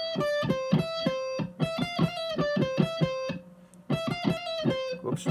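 Electric guitar playing a quick lead phrase high on the top string around the 10th to 13th frets, picked notes mixed with hammer-on/pull-offs. The phrase breaks off briefly a little past halfway, then is played again.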